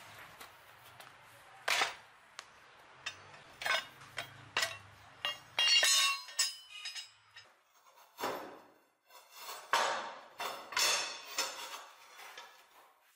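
Hand-forged flat steel strips clinking and clanking against each other as they are laid down and stacked by hand, a string of sharp metallic knocks with one ringing briefly about six seconds in.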